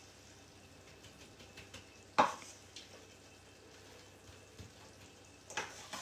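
Metal spoon scraping a thick chocolate mixture out of a stainless-steel mixing bowl, with one sharp knock of spoon against bowl about two seconds in and a short scrape near the end.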